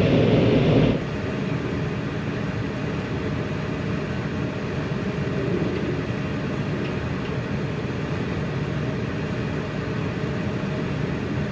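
Heavy farm machinery engine running steadily, louder for about the first second, then dropping suddenly to a lower, even hum.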